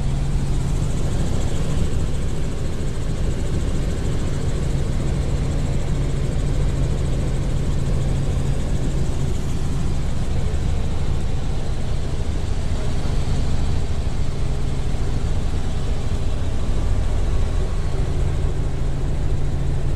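Helicopter rotor and engine running steadily, heard from inside the cabin.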